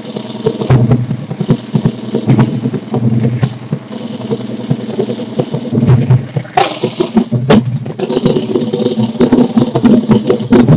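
Harley-Davidson Dyna Wide Glide's Evolution V-twin running loudly just after a cold start, with a rapid pulsing beat and a few sharp knocks about six to seven seconds in.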